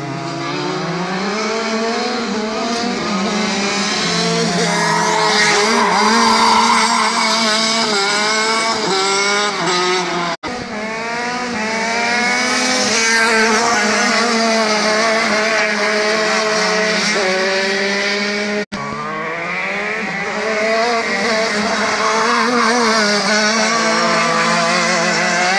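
Go-kart engines running on a track, revving up and down again and again as the karts brake into and accelerate out of corners, over a steadier lower engine note. The sound breaks off for a moment twice, at cuts about ten and eighteen seconds in.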